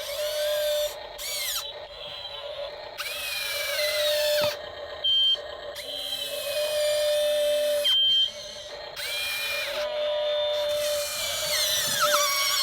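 Whine of a radio-controlled construction model's small electric motors, starting and stopping and rising and falling in pitch as the controls are worked.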